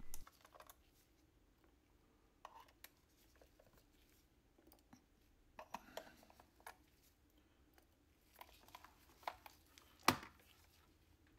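Faint, scattered clicks and scrapes of a small screwdriver and tweezers on the trackball's plastic housing as screws are taken out, with one louder knock near the end.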